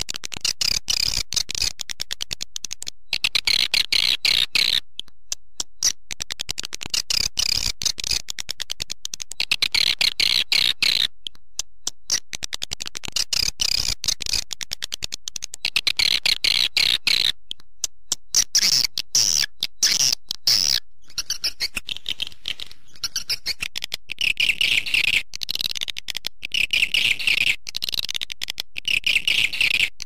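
Recorded swiftlet calls: rapid, high-pitched twittering chirps in phrases of a few seconds, repeating with short gaps. This is a lure call sound played at swiftlet houses to draw the birds in.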